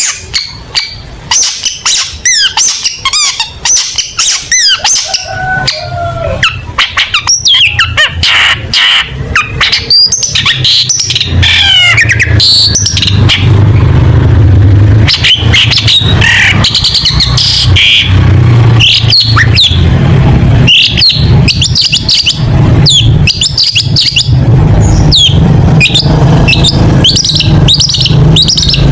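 Long-tailed shrike (cendet) singing a fast, varied song of rapid chirps, quick whistled sweeps and harsh notes in close succession. A steady low hum runs underneath from about five seconds in.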